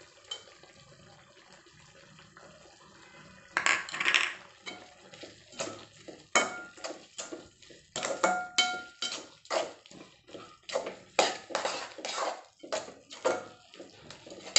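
A perforated steel ladle stirring sambar masala into the vegetables in a cooking pan. After a quiet start, from about three and a half seconds in there are repeated irregular scrapes and knocks of the ladle against the pan, some ringing briefly.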